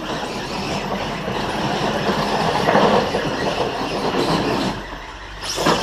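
Side-by-side off-road vehicle running hard as the race starts: a steady engine rumble with rattling and clatter from the machine over rough ground.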